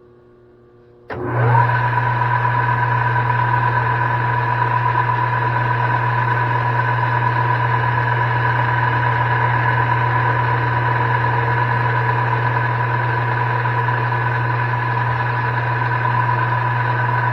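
Metal lathe switching on about a second in and running steadily: a loud, even low hum with a steady whine on top.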